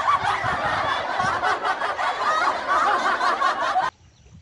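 Loud, dense laughter with overlapping voices, cutting off suddenly near the end.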